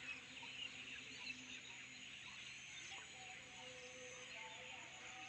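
Faint chorus of many distant birds chirping and calling at once, with a few longer, lower calls standing out.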